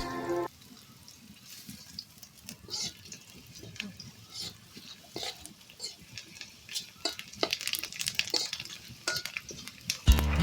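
A spatula stirring and scraping food in a frying pan: irregular clicks and scrapes against the metal, coming thicker toward the end, with faint frying beneath.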